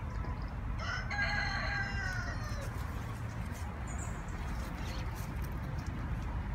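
A rooster crowing once, a single call of nearly two seconds that falls slightly in pitch, about a second in, over a steady low rumble.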